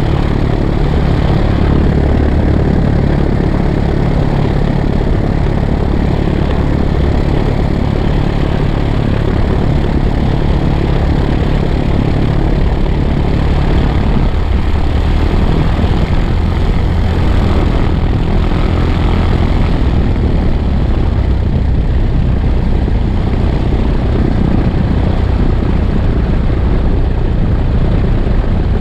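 Piper Cherokee's four-cylinder Lycoming engine and propeller running steadily, heard from outside the airframe at the tail.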